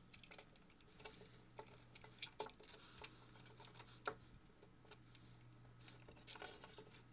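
Faint clicks and scrapes of a multi-pin D-sub plug with a plastic hood being handled and pushed onto its panel-mounted socket, with two sharper clicks about two and a half and four seconds in. A low steady hum runs underneath.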